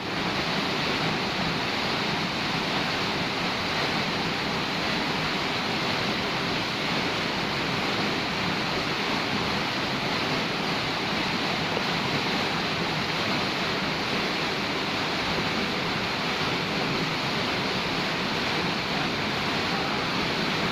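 Waterfall rushing steadily, an unbroken hiss of falling water with no distinct events.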